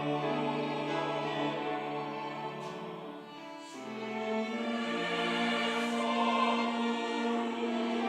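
Church choir singing a Sunday worship anthem in long held chords; the sound thins out about three and a half seconds in, then swells again on a new chord.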